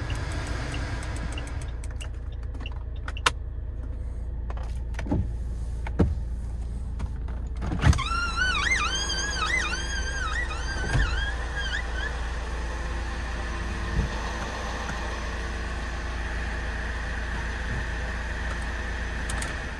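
Saab 9-3 2.0-litre turbo four-cylinder idling, heard from inside the cabin, with a few sharp clicks from the controls. About eight seconds in, a warbling tone rises and falls over and over for about four seconds.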